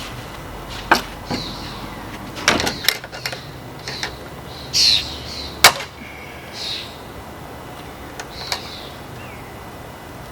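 A few sharp clicks and knocks of metal latch hardware (hook and eye hooks) being handled at a gate, the loudest a little over halfway through. Short high bird chirps sound between them.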